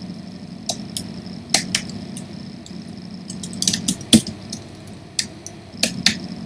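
Computer keyboard keys clicking in an irregular run of keystrokes as a terminal command is typed, over a faint steady hum.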